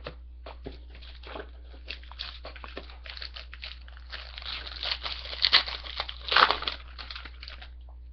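Wrapper of a pack of hockey cards crinkling and tearing as it is opened and the cards are pulled out, a run of crackles that grows louder in the second half.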